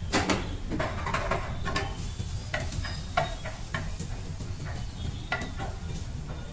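Chopped vegetables tipped into a hot frying pan sizzle, then a wooden spatula stirs them with repeated scrapes and taps against the pan.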